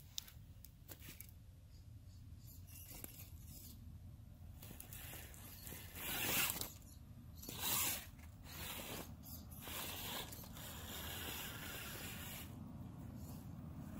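Radio-controlled crawler truck's motor and drivetrain whirring in short bursts of throttle as it clambers over a pile of branches and logs. The two loudest bursts come about six and eight seconds in.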